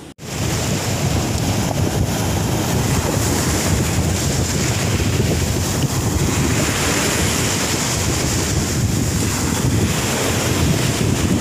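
Wind buffeting the microphone over the steady wash of shallow surf foaming up the beach.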